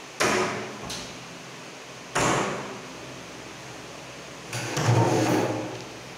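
Upper loft doors of a built-in wooden wardrobe being pushed shut: two sharp knocks about two seconds apart, then a longer, louder knock and rumble about a second long near the end.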